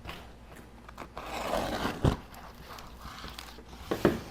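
Cardboard packaging being opened by hand: a rasping tear or scrape about a second in, then a sharp knock, and further clicks and a knock near the end.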